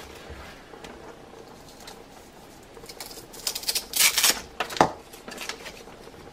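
Plastic juicer parts being handled: scattered light clicks, a short rustling scrape about four seconds in, and a knock just after.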